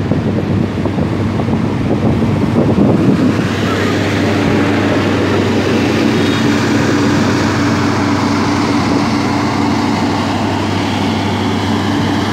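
Passenger train moving through the station below: a steady diesel hum with the noise of the coaches rolling on the rails, which grows louder about three and a half seconds in.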